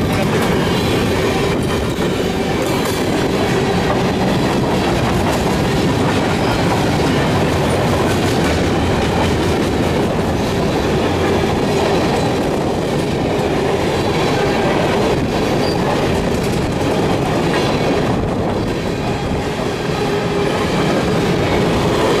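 Loaded BNSF freight train's cars rolling slowly past, steel wheels on the rails making a steady, unbroken run of clattering noise with a faint steady squeal underneath.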